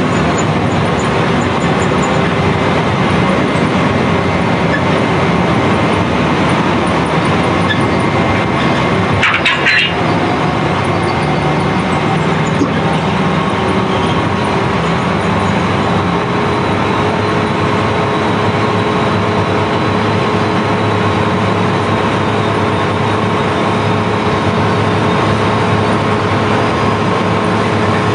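Sand barge's unloading machinery running steadily and loudly as its hold is emptied of sand, a dense rumble and hiss with a few held tones. A brief clatter comes about ten seconds in.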